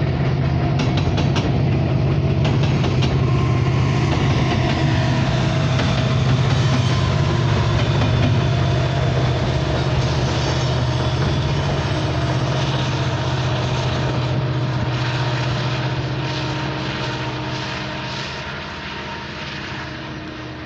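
Loaded coal hopper cars rolling over a steel girder bridge with rapid wheel clicks, under the steady drone of the train's rear diesel locomotive as it passes. The sound fades over the last several seconds as the train moves away.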